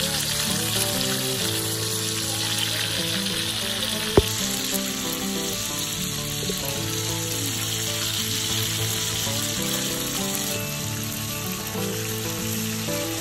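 Whole red fish sizzling steadily as they deep-fry in hot oil in a metal wok. There is a single sharp click about four seconds in.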